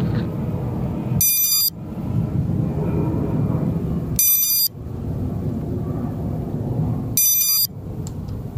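High-pitched electronic beeps from an FPV quadcopter waiting on the ground before takeoff: three beeps of about half a second each, about three seconds apart, with a steady low rumble between them.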